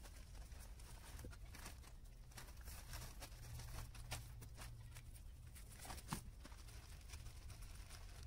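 Faint rustling and light taps from a plastic tarpaulin being handled and tied up, with a sharper tap about four seconds in and again about six seconds in, over a low steady hum.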